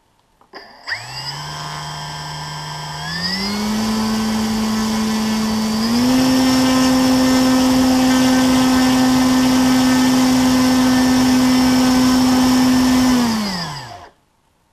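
RC glider's electric motor and propeller run up in three throttle steps, a whine whose pitch rises with each step, held at full throttle for about seven seconds, then winding down and stopping near the end. This is a static power test: at full throttle it draws about 16 amps, around 180 watts, from a 2200 mAh LiPo flight battery.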